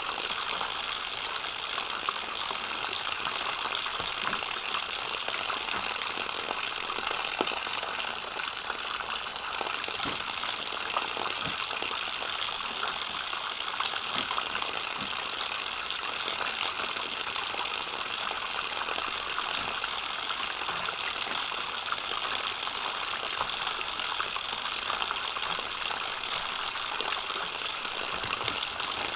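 A steady, continuous hiss of outdoor ambience, with a few light clicks and knocks scattered through it.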